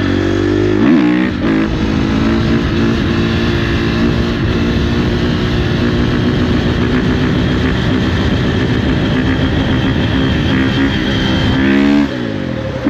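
2018 Husqvarna FC350's single-cylinder four-stroke engine held at high revs through a wheelie. The pitch dips and rises again about a second in, holds steady for most of the time, then falls as the throttle closes near the end.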